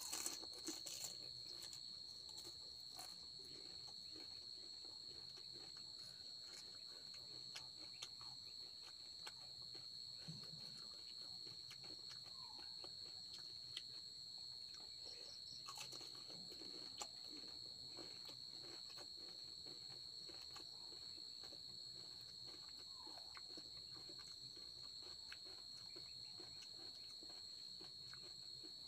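Crickets trilling steadily as one continuous high-pitched tone. Faint crunches and clicks of a crisp panipuri shell being bitten and chewed come in the first second or so, with a few more scattered later.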